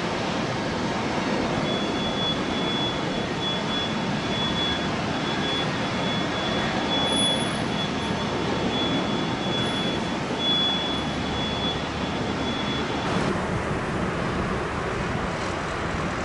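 Airbus A380 four-engine jet climbing out at takeoff thrust: a steady rumbling jet noise with a thin high whine over it. About thirteen seconds in, the sound cuts to another steady jet noise with less hiss at the top.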